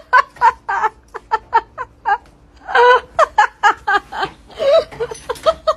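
A person laughing hard in quick repeated bursts, with a few longer drawn-out notes about three seconds in.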